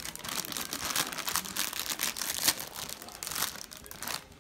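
Foil crisp bag being pulled open and crinkled by hand: a dense run of crackles, with a few louder ones about halfway through.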